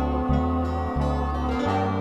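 Background music of plucked strings over a bass line that steps from note to note every half second or so.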